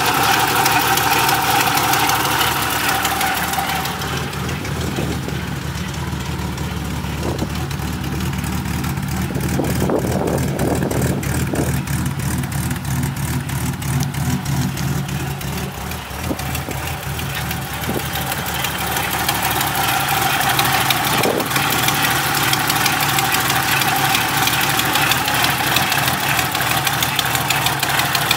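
Engine idling steadily, with a fast, even ticking running through it that is strongest midway.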